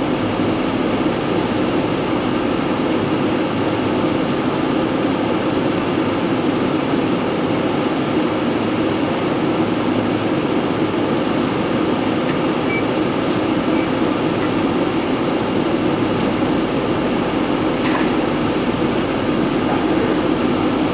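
Steady, loud rushing drone of machinery or moving air, even throughout, with a few faint small clicks of hand tools on metal.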